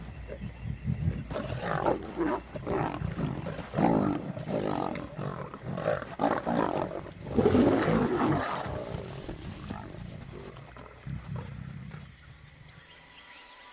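A pride of lions growling and snarling in short, irregular bursts while feeding on a hippo carcass, a squabble over the kill. The loudest outburst comes about seven to eight seconds in, and the snarling dies away near the end.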